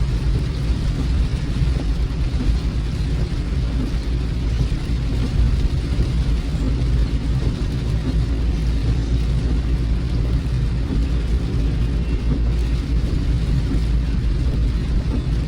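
Steady low rumble of a car driving, heard from inside the cabin, with a steady hiss of rain over it.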